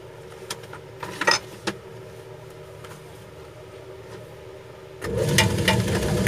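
Shoe-repair grinding machine humming steadily, with a few light knocks from handling the sandal; about five seconds in a much louder rough grinding noise starts as the sandal's wedge edge is ground level.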